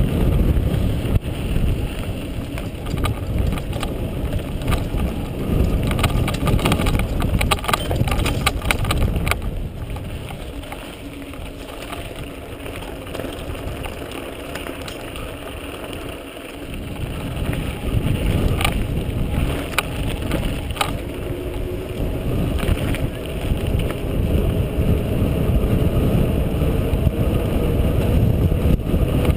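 Mountain bike rolling fast downhill on a dirt trail: wind rushing over the action-camera microphone, tyres on dirt and the bike rattling and knocking over bumps. The noise eases for several seconds in the middle, then builds again.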